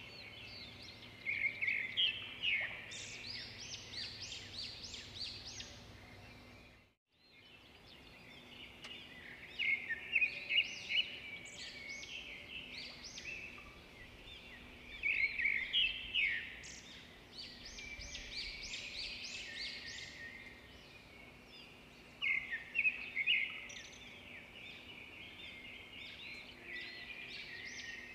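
Small birds chirping and singing in quick trills, in loud bursts with quieter stretches between; the sound cuts out completely for a moment about seven seconds in.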